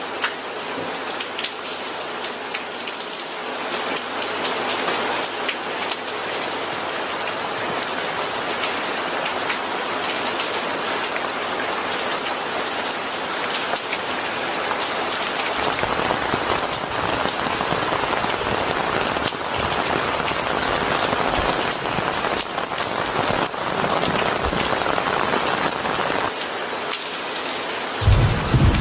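Steady rain falling with a dense patter of individual drops, growing fuller and heavier from about halfway. Near the end a loud, low rumble of thunder sets in.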